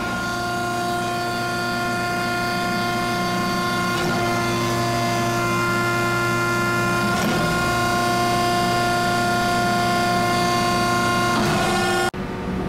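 Hydraulic pump of a 16-ton forging press running with a steady whine while the ram is cycled up and down by its control lever. The tone shifts briefly about four, seven and eleven and a half seconds in as the valve is moved, and the sound cuts off suddenly near the end.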